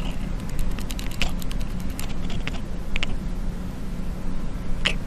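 Domestic cat purring right at the microphone: a steady low rumble, with scattered small clicks over it.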